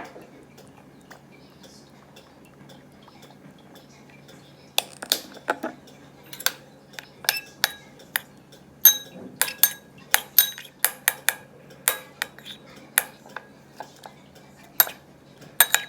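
A metal utensil clinking repeatedly against a dish, in quick irregular strikes with a short ringing note, starting about five seconds in after a quiet stretch.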